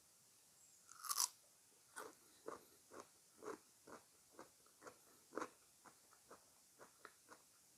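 A crunchy bite into fresh fruit about a second in, followed by steady chewing at about two chews a second that grows fainter toward the end.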